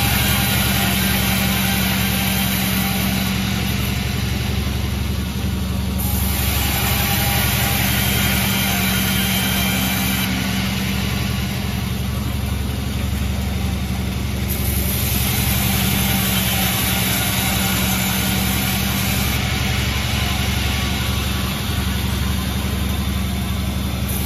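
Sawmill machinery running: a steady low engine hum, with a higher hiss that swells and fades several times.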